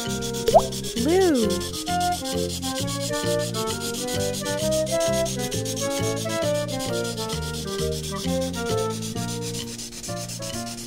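A scratchy rubbing sound effect for coloring in, a fast, even scrubbing, over light background music with a steady bouncy beat. A short rising-then-falling glide tone sounds about a second in.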